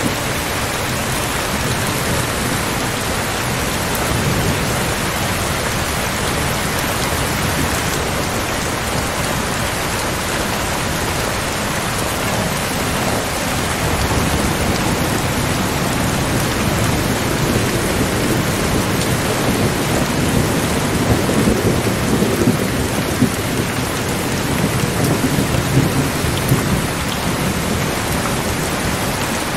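Steady rain with rolling thunder. Low rumbles swell in now and then and are strongest in the second half.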